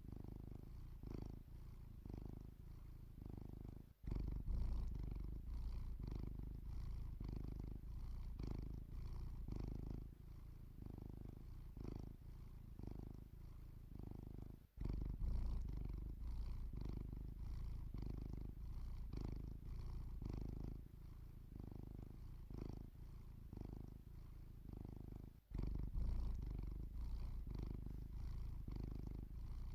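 Domestic cat purring while asleep, a low rumble swelling and fading with each breath in a steady rhythm. Three brief dropouts about ten seconds apart, after each of which the purr comes back louder.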